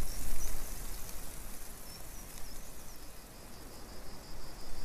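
Outdoor ambience: a low wind rumble on the microphone, strongest in the first half-second, with faint high chirps and, from about halfway, a steady pulsing high-pitched trill.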